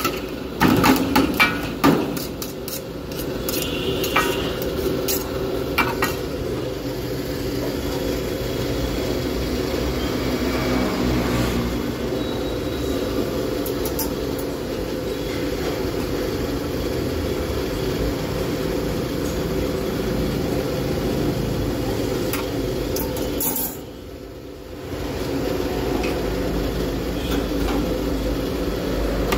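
Metal spatula and knife clattering and scraping on a steel tray of chopped shawarma meat, with sharp clinks in the first couple of seconds and a few more after, over a steady background hum that dips briefly near the end.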